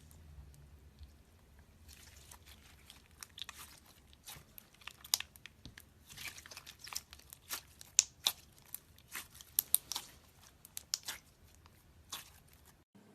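Slime being squeezed and pressed by hand, giving an irregular run of sharp crackling clicks and pops that thicken towards the middle and stop abruptly near the end.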